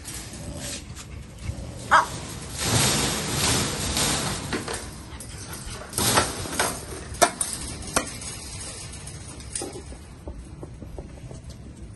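Kennel dogs barking and yapping at intervals, with a few sharp clicks and knocks in between.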